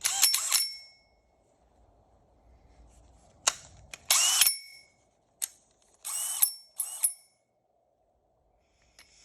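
Cordless drill with a hole saw run in about six short bursts against a control-arm bushing. Several bursts are followed by a brief metallic ring.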